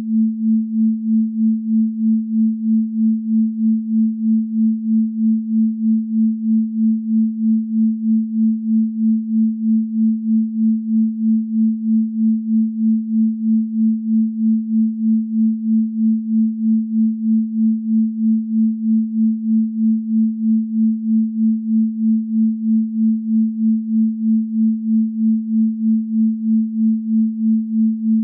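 A synthesized pure sine tone at about 221 Hz (the A below middle C), pulsing evenly in loudness about two and a half times a second.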